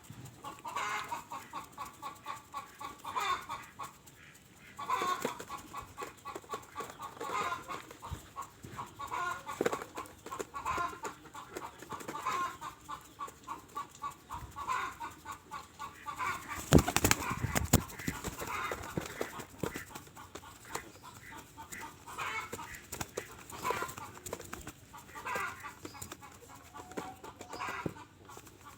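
Birds at feeding time giving rapid, repeated short clucking calls. There is a louder burst of wing flapping about 17 seconds in.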